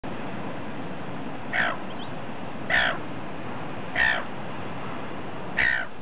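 Silver gull giving four short calls, spaced a little over a second apart, over steady background noise.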